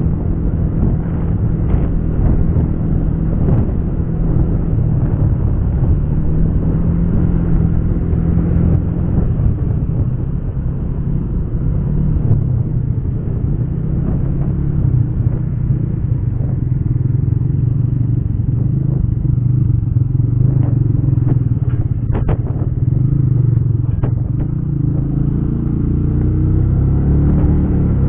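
Motorcycle engine running at road speed with wind and road noise, picked up through a helmet headset microphone; the engine note shifts in pitch now and then with the throttle. A few brief clicks sound past the middle.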